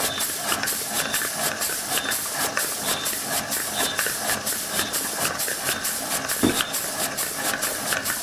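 Homemade model steam engine running on live steam, hissing with an even beat of about four strokes a second. There is one brief thump about six and a half seconds in.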